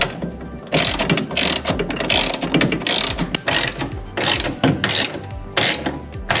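Hand ratchet wrench clicking as nuts are run down onto studs, in a series of short back-and-forth bursts.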